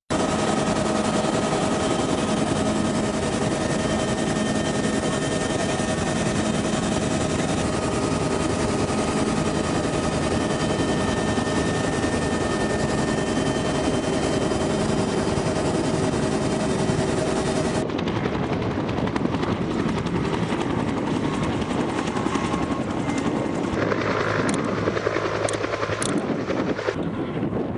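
Helicopter engine and rotor noise heard from on board: a steady, dense noise with a few held tones. About two-thirds of the way through it cuts to a duller, lower engine-and-wind noise with a few clicks.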